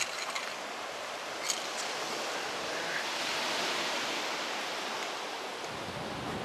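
Surf washing on a beach: a steady rushing hiss that swells about three seconds in and then eases. A few small clicks come in the first two seconds.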